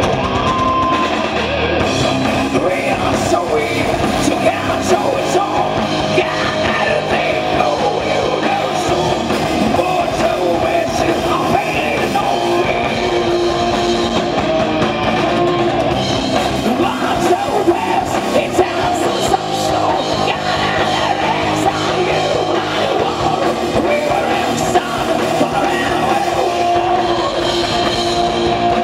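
Live heavy metal band playing: distorted electric guitars and a drum kit, with a woman singing over them.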